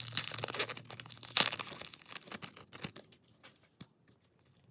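Foil trading-card pack wrapper being torn open and crinkled: dense crackling for the first second and a half, then thinning to scattered crackles.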